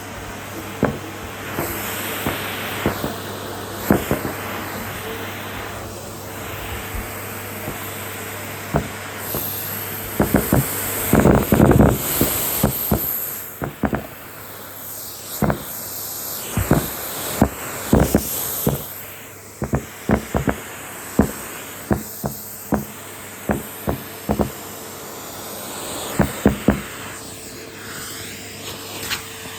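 Henry cylinder vacuum cleaner running steadily, with many sharp knocks and clicks over its hum, densest for a few seconds near the middle.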